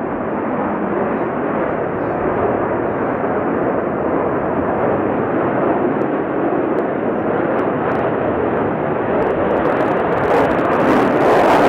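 Jet noise from a Sukhoi Su-35 fighter's twin turbofan engines as it flies overhead: a steady, loud rushing sound that grows a little louder near the end.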